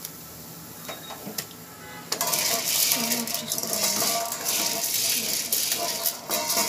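A few faint clicks, then from about two seconds in a loud continuous rattle of popped sorghum being shaken in a covered aluminium kadai, the grains clattering against the pan and its steel lid with a metallic ring.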